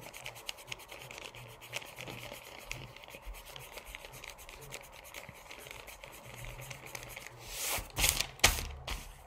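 Eraser rubbing back and forth on journal paper to remove leftover pencil lines, faint at first, with a few louder strokes near the end.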